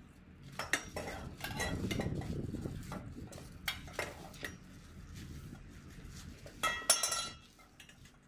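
Steel trampoline frame tubes clinking and knocking together as they are handled and fitted into one another. The loudest is a ringing metal clink near the end.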